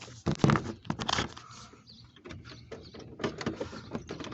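Clicks, knocks and scraping from hands working the old radio's release clips and the surrounding dash trim, trying to pull the radio loose.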